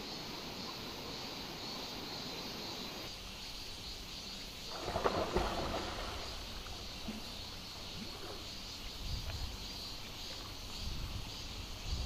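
Outdoor ambience at a rocky mountain stream: a steady high-pitched insect drone over a low rush of water. About five seconds in there is a brief louder noise, and low wind buffets hit the microphone near the end.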